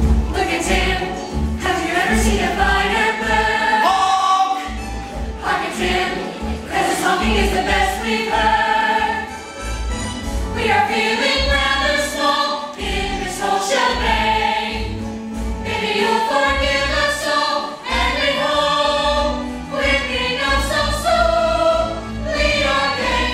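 A chorus of voices singing a musical-theatre ensemble number, with instrumental accompaniment and a low pulsing bass.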